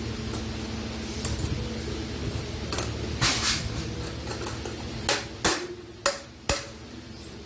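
Sheet iron being hammered and knocked by hand: scattered sharp metal knocks, the strongest four coming close together near the end, over a steady low hum that dies away about five seconds in.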